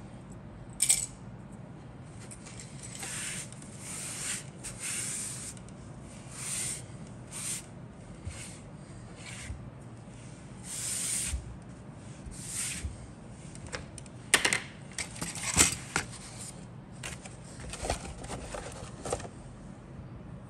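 Handling noise on a cutting mat: short rustles and scrapes with a few sharp clicks of small hard objects, the loudest about a second in and a pair of clicks about two-thirds of the way through.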